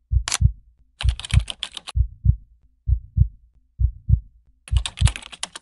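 Heartbeat sound effect, a low double thump about once a second. Over it come two short runs of rapid typing clicks, about a second in and again near the end.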